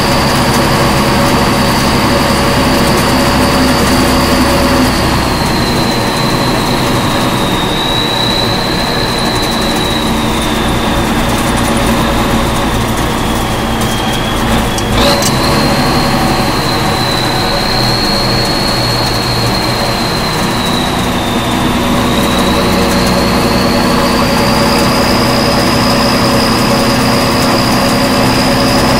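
1967 M35A2 army truck's turbocharged multifuel diesel engine running under way, with a steady low drone and road noise. A high whine falls through the middle and climbs again near the end as the engine slows and picks up. There is a single knock about halfway.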